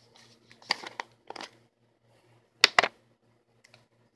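Slime being squeezed and kneaded in the hands, giving a few short squelching pops and clicks, the loudest two close together near three seconds in.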